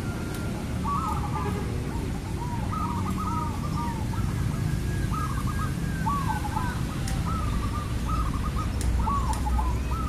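Zebra dove (perkutut) cooing: repeated phrases of soft, quick staccato coos and trills, over a steady low background rumble.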